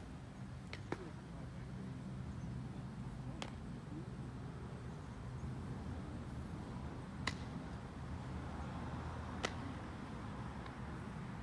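Outdoor park ambience: a steady low rumble with a few sharp, isolated knocks, about four, spread over several seconds.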